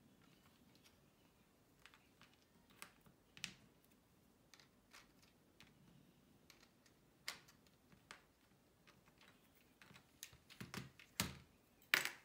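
Plastic LEGO Spike Prime pieces clicking and clattering as they are handled and set on a table: scattered small clicks, with a cluster of louder knocks near the end.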